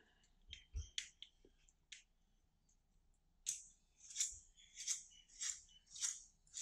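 A small solar lightbulb being twisted apart by hand at its screw-threaded base: a few light clicks, then about six short scraping rasps a little over half a second apart as the base is turned against the bulb.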